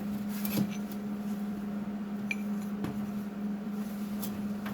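A few light metallic clinks and taps from steel winch spool parts being handled, one giving a short ring a little past two seconds in, over a steady low hum.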